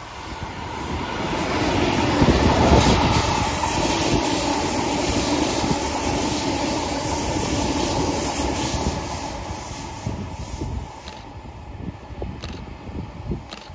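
Electric suburban passenger train passing close by, its wheels running on the rails. The sound swells over the first couple of seconds, stays loud, then fades after about nine seconds.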